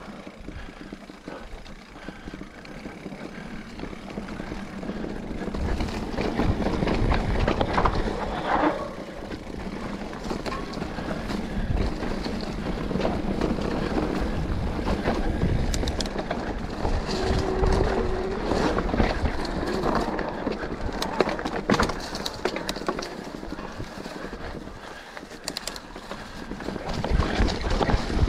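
Specialized Turbo Levo electric mountain bike riding down a dirt singletrack: the tyres run over the dirt while the frame and drivetrain rattle and clatter over bumps. The riding noise gets louder about six seconds in.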